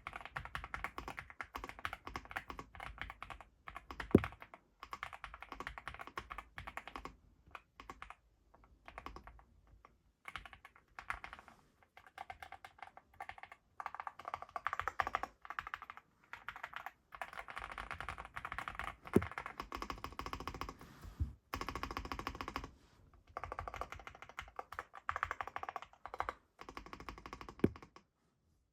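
Typing on a NuPhy Gem80 mechanical keyboard with Gateron x NuPhy Raspberry linear switches on a gasket-mounted FR4 plate: fast runs of key presses in bursts with short pauses, a few louder single strokes, stopping shortly before the end.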